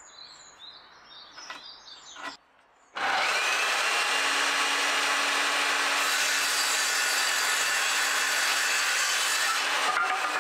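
Light scratching and handling as a wooden batten is marked with a pencil, then a handheld electric circular saw starts abruptly about three seconds in and runs steadily while crosscutting the batten, easing off near the end.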